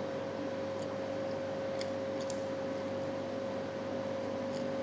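Steady hum with one constant mid-pitched tone over a soft hiss, with a few faint clicks from someone chewing food.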